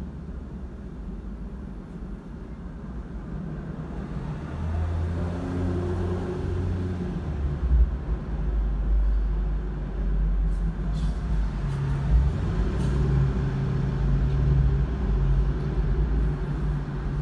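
Low engine rumble of a motor vehicle, growing louder about four seconds in and then holding steady, with a couple of faint clicks.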